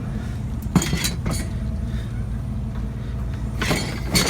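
A vehicle engine idling steadily, with a few sharp knocks and clatters over it, about a second in and twice near the end.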